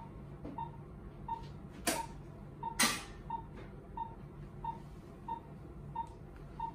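Patient monitor's pulse-oximeter beeping once per heartbeat, a steady short tone about one and a half times a second (a pulse of roughly 90 a minute). Two brief scuffing noises come about two and three seconds in.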